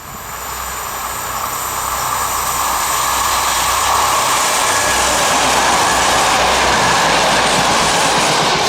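Passenger train passing close by: a rushing noise of wheels on rail and displaced air that swells over about four seconds, then holds steady and loud.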